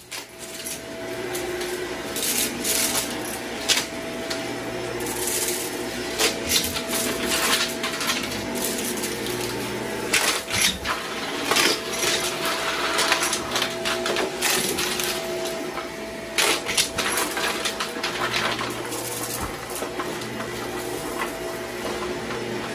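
Upright bagless vacuum cleaner running over carpet with a steady motor whine, while small debris is sucked up in many sharp, irregular clicks and crunches.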